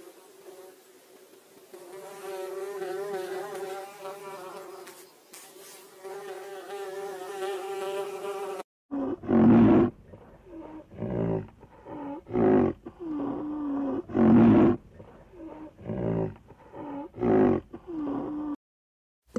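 A flying insect buzzing, a steady hum that wavers slightly in pitch, cuts off abruptly about nine seconds in. It is followed by an animal giving a series of short, loud calls about a second apart.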